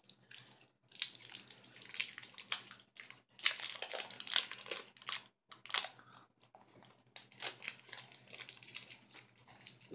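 Small candy wrapper crinkling as it is worked open by hand, in several bouts of crackling with short pauses between.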